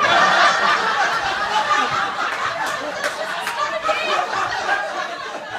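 Audience laughing loudly, a burst that breaks out just before and slowly dies down.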